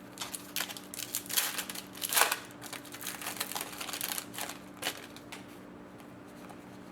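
Hockey trading cards being handled: a pack's wrapper rustling and cards flicked and slid against each other, a quick run of rustles and clicks lasting about five seconds, loudest a little past two seconds in.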